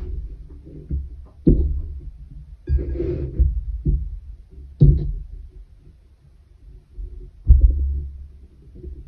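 Handling noise from hands working yarn on a wooden pin loom on a tabletop: a handful of dull low thumps at irregular intervals, with a brief scratchy rustle about three seconds in.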